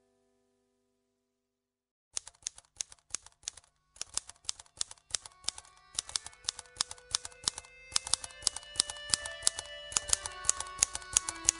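Background music track starting after about two seconds of silence with rapid, evenly spaced clicks, about five a second, like a typewriter. Sustained instrumental notes grow in under the clicks from about four seconds in and get steadily louder.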